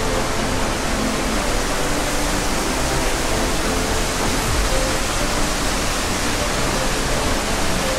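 Steady rushing of an artificial waterfall pouring into an aquarium exhibit pool.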